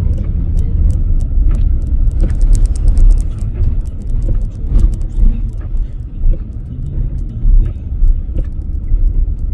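A 4x4 pickup truck driving through deep snow, heard from inside the cab: a steady low rumble of engine and tyres, with many sharp clicks and crackles over it, thickest a couple of seconds in.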